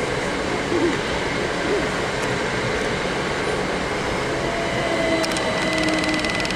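Great Western Railway passenger train passing at speed: a steady rumble of wheels on rail, with a steady tone coming in partway through and rapid clicking near the end.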